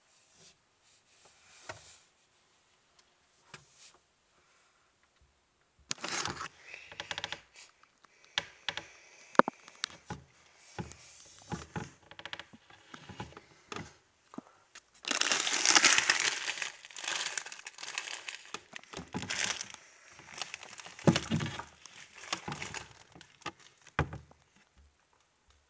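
Food packaging crinkling and crackling in irregular bursts with sharp crackles, starting about six seconds in and loudest in a dense stretch around the middle.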